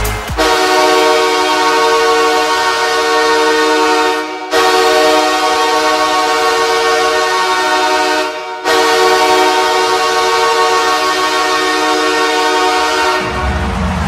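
Los Angeles Kings goal horn sounding three long blasts of one steady, many-toned chord, each about four seconds, with short gaps between. Near the end the horn stops and music with a heavy beat comes in.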